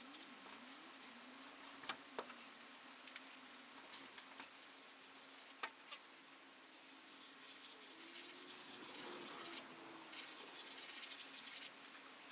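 Airbrush spraying paint in two runs of rapid short hissing bursts, about seven seconds in and again near the end, with scattered faint clicks and a low steady hum underneath.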